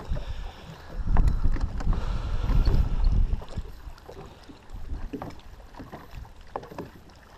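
Wind buffeting the microphone, heaviest for the first few seconds, over water lapping against a bass boat's hull, with a few light clicks.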